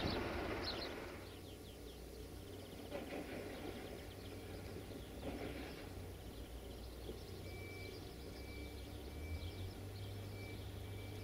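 Outdoor ambience of birds chirping over a low steady hum. A louder noise fades out in the first second or so, and a faint high note repeats at an even pace from a little past halfway.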